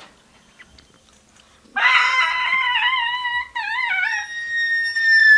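A child's high-pitched, drawn-out wail, made as a spooky mystery noise. It starts about two seconds in, wavers in the middle, and ends on a long, even higher note that slides slightly downward.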